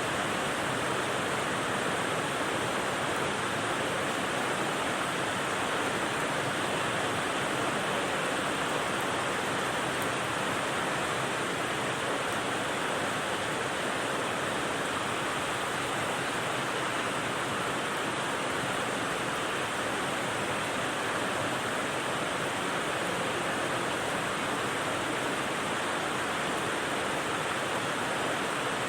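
Rain sounds used as white noise: a steady, even hiss that stays the same throughout, with no single drops or other sounds standing out.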